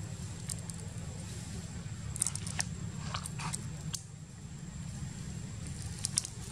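A long-tailed macaque biting and chewing raw sugar cane. The fibrous stalk gives crisp crunches and snaps in clusters, about two seconds in and again near the end.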